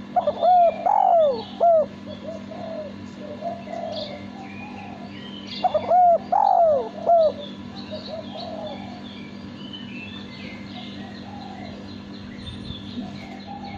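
Male spotted dove cooing: two loud phrases of several arching notes about five seconds apart, with fainter coos and small bird chirps in the background and a steady low hum.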